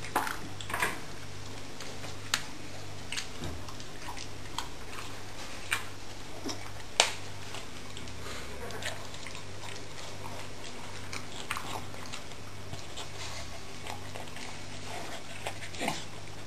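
A beagle eating from a bowl on the floor: chewing, with sharp clicks now and then, the loudest about seven seconds in.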